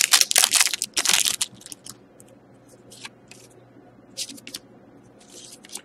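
Foil wrapper of a hockey-card pack torn open and crinkling in the hands for about a second and a half, followed by a few faint ticks and slides as the cards are handled.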